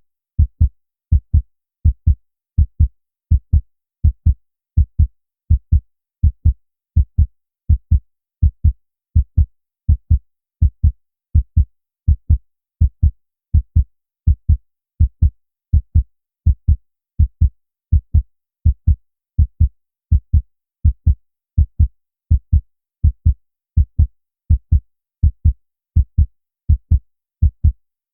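Human heart beating steadily at about 80 beats a minute. Each beat is a pair of low thumps, the lub-dub of the first and second heart sounds.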